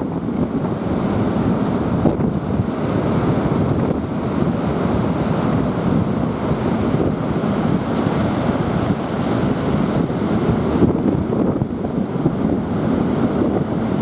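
Storm surf breaking and washing up a sandy beach, with strong gusty wind rumbling on the microphone; a loud, steady rush with no let-up.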